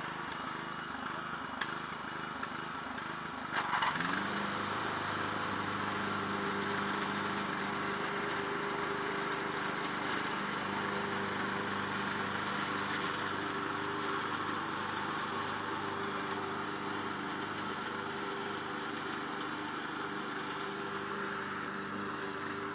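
Old Craftsman riding lawn mower's engine running while mowing; about four seconds in it speeds up, then runs steadily at the higher speed.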